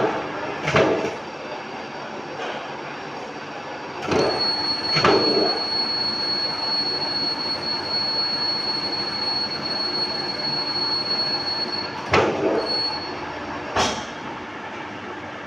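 Machine tool running with a steady high whine for about eight seconds, from about four seconds in until near the end, amid a mechanical hum. Sharp clunks come at the start, around a second in, as the whine begins and ends, and once more near the end.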